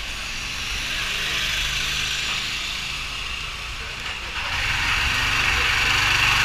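Go-kart engine idling with a steady hiss over it; the engine sound grows louder about four and a half seconds in.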